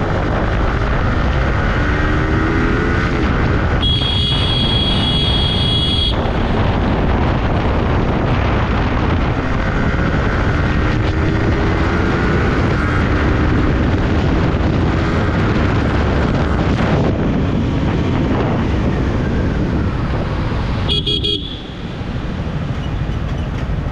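Yamaha R15 M's 155 cc single-cylinder engine running on the move through traffic, its note rising twice as it accelerates, over a steady loud rush of wind and road noise. A vehicle horn sounds for about two seconds a few seconds in, and a short honk comes near the end.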